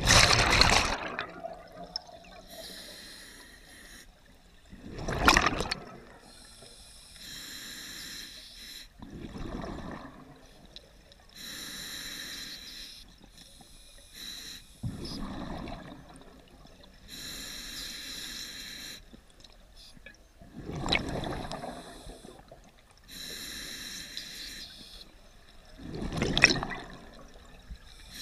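Scuba diver breathing through an open-circuit regulator: a hissing inhale through the demand valve, then a loud rush of exhaled bubbles, repeating about every five to six seconds, with six exhales in all.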